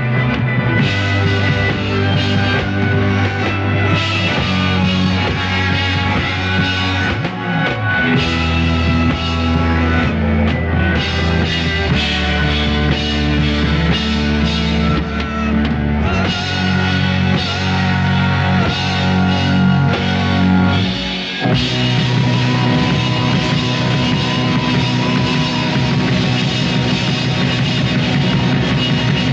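Psychedelic rock band playing, with electric guitar over bass and drums. The low notes are held and move to a new one every few seconds, with a short drop in the sound about 21 seconds in.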